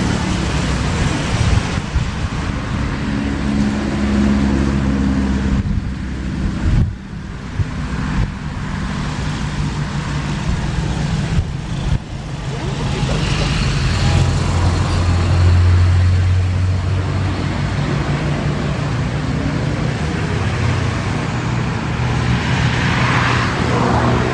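Engines running: a steady low rumble with several hums that shift in pitch, broken by abrupt cuts twice.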